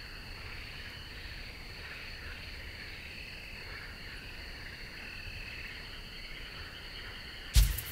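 Steady high-pitched chorus of night insects, crickets, in a summer night ambience. Near the end a sudden loud low thump as music comes in.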